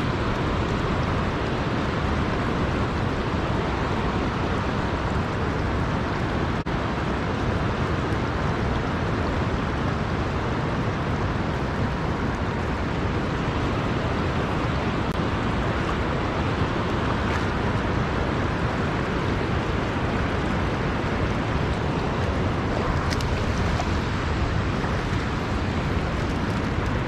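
Steady rushing of a river's current, an even wash of flowing water with no change through the stretch.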